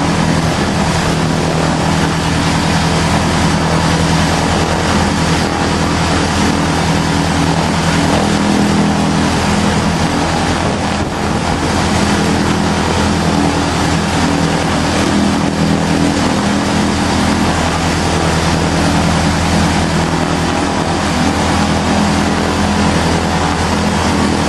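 Light aircraft's engine, run without its cowling, running steadily with the propeller turning, during the plane's first engine runs.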